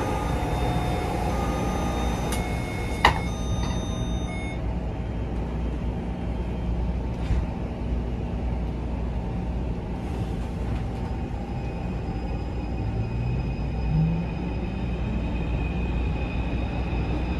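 Inside a Taipei Metro C341 train car over a steady low rumble: a chime of several short tones and a sharp knock about three seconds in as the doors close, then, about thirteen seconds in, the traction motors begin a rising whine as the train pulls away.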